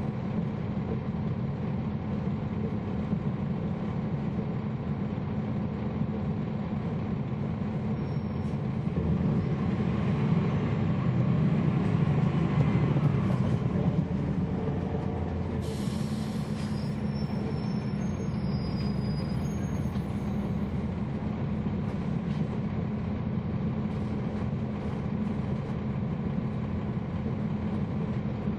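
Cabin sound of a NABI 40-SFW transit bus's Cummins ISL9 inline-six diesel engine and drivetrain running steadily, growing louder for about five seconds in the middle as it works harder, with a faint whine from the ZF Ecolife six-speed automatic transmission. A brief high hiss comes about halfway through.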